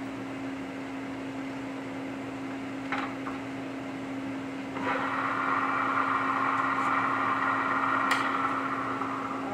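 Radial arm drill running with a steady hum, a couple of lever clicks; about five seconds in a louder, higher whirring joins as the machine is set to more speed and the carbide end mill is brought down toward the broken hardened dowel pin, then falls away near the end.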